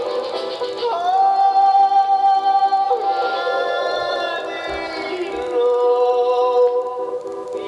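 Music with singing: a long held vocal note comes in about a second in, over a steady pulsing accompaniment.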